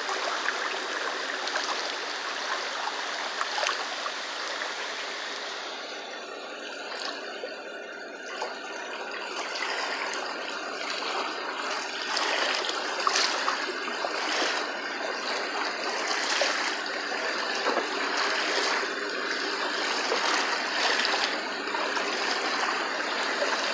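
Muddy floodwater rushing and churning over a flooded road: a steady wash of water noise. Brief, sharper noises break through it from about halfway.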